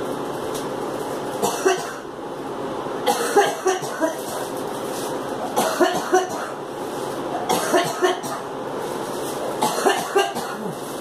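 A girl coughing in repeated fits, each a cluster of a few short coughs, about five fits roughly two seconds apart, over a steady background hum.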